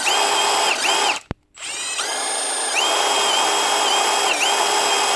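Milwaukee M12 stubby impact wrench's motor spinning free with a high whine. It cuts out briefly about a second in, spins back up, then dips and recovers several times. This is the dead spot in its variable-speed trigger switch.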